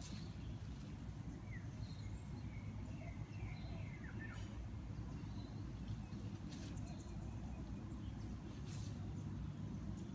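Outdoor background: a steady low rumble with faint, short bird chirps in the first half, and two brief high rustles later on.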